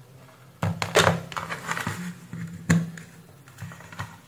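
A run of knocks and clicks from hands working on a workbench: multimeter test probes being set down and a small plastic satellite receiver being picked up and handled. The two loudest knocks come about a second in and again a little before three seconds.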